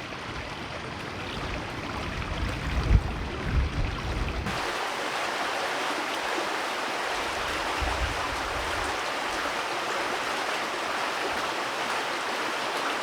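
Steady rushing noise of wind and water outdoors in bad weather. Gusts buffet the microphone with low rumbles in the first few seconds, the strongest about three and four seconds in.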